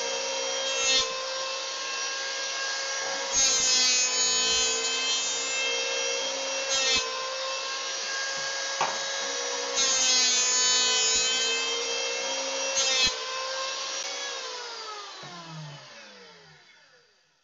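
Electric hand planer running with a steady whine as it is pushed along the edge of a wooden batten to plane it straight. It grows louder each time the cutter bites, longest twice. After the last pass it is switched off and its whine falls in pitch as it spins down.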